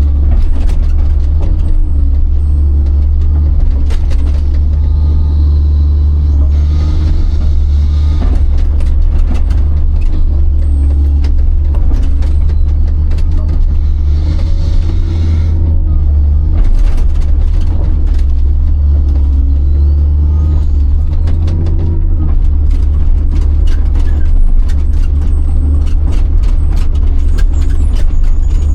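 Big excavator's diesel engine running steadily with a deep, loud rumble, with scattered clanks and knocks from the machine at work and two stretches of hiss, the first about seven seconds in and the second about fourteen seconds in.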